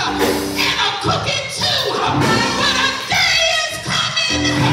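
Gospel singing: a woman's voice sings through the microphone over held chords, the chord changing near the end.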